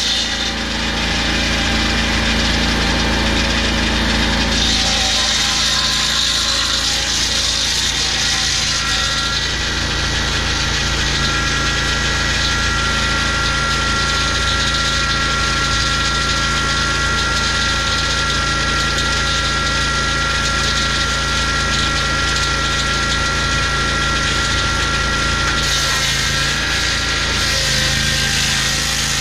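Lucas portable sawmill running under load, its petrol engine driving the blade steadily through a gum log. A steady whine rises over the engine from about a third of the way in and fades near the end.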